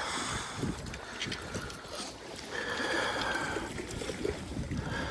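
Wind buffeting the microphone in a rough, gusty rumble, with small clicks and rustles of handling and a brief high tone about halfway through.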